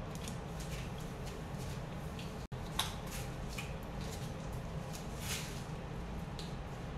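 Steady low room noise with a few faint rustles and clicks, and a brief dropout to silence about two and a half seconds in.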